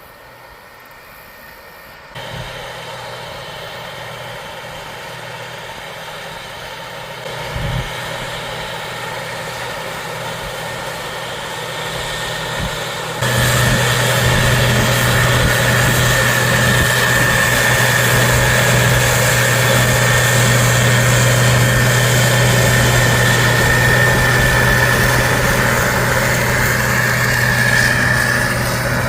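Farm harvest machinery engine running steadily. It gets louder in steps about two seconds in and again about thirteen seconds in. From then on a steady high whine sits over the engine hum.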